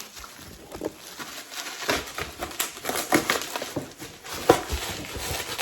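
Rustling and crinkling of packaging with scattered taps and knocks as a heavy wooden cutting board is unwrapped and handled, busier from about two seconds in, with one sharper knock about four and a half seconds in.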